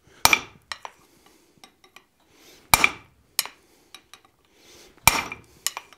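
Hand hammer striking a center punch held on a hot 4140 steel billet on the anvil, marking the centre of the hammer eye: three sharp metallic blows about two and a half seconds apart, each with a brief ring, and lighter clinks between them.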